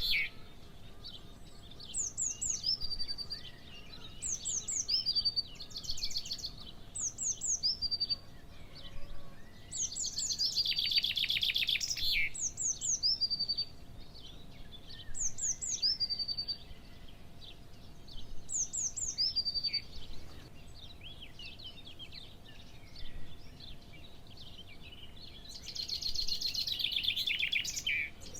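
Birds singing: a short, high phrase that slides downward, repeated every second or two, with longer rapid trills about ten seconds in and again near the end.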